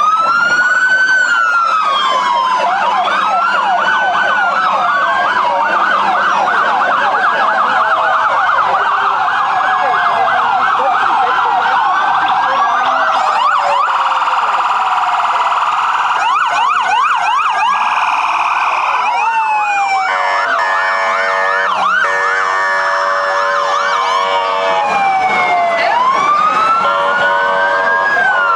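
Several emergency-vehicle sirens sound at once, overlapping slow rising-and-falling wails and fast yelps. For a few seconds after the middle a steady tone runs alongside them.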